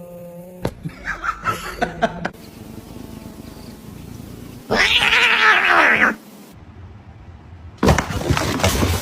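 A cat caterwauling: one long, loud yowl about five seconds in that rises and falls in pitch, among shorter noisy sounds before and after it.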